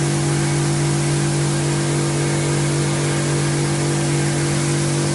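Self-service car wash machine's high-pressure water pump running steadily with its spray gun open, a constant low hum under a hiss of water spray.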